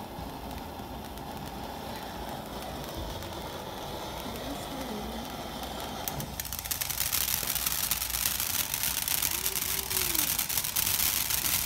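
A ground fountain firework sprays sparks with a steady hiss. About six seconds in it breaks into a louder, dense crackling of rapid pops that carries on through the rest.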